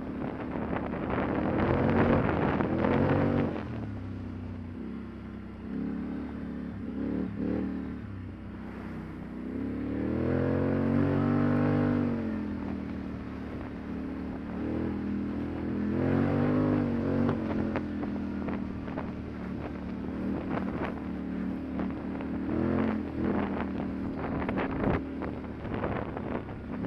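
ATV engine running while being ridden along a rough trail, its pitch rising and falling several times as the throttle is opened and eased.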